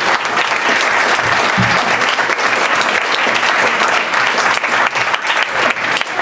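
Audience applauding, many hands clapping steadily; the clapping thins and turns more ragged near the end.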